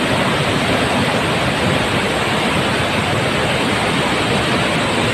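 Brown, storm-swollen floodwater pouring over a concrete dam and churning into white water below, a steady loud rush with no letup.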